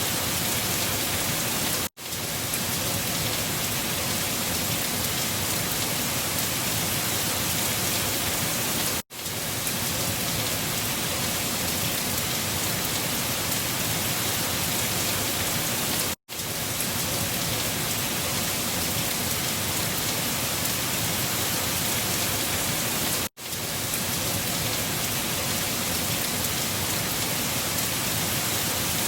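Steady, even hiss of a wind storm, cutting out for a split second about every seven seconds.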